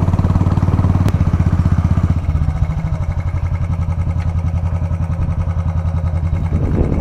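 Royal Enfield 350's single-cylinder engine running with a steady, rapid low thump, easing off slightly about two seconds in.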